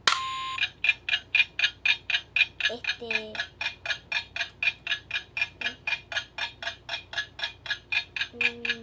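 Tablet game's countdown timer ticking fast and evenly, about three and a half ticks a second, after a short beep that starts the round.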